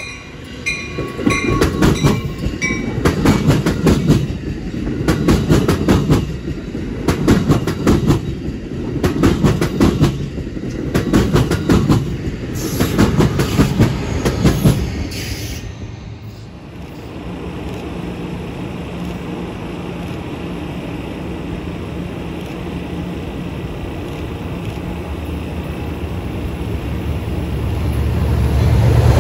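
Amtrak Pacific Surfliner double-deck passenger train passing close by, its wheels clattering in a repeated rhythm over the rail joints, with the Siemens Charger locomotive pushing at the rear. After a break it changes to a steady rumble from a second Amtrak train led by a diesel locomotive, growing louder as it approaches near the end.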